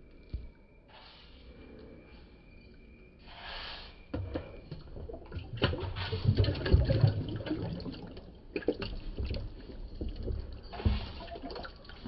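Water sloshing and splashing in a plastic tub as a plastic container is rinsed and dipped into it by hand, starting about four seconds in.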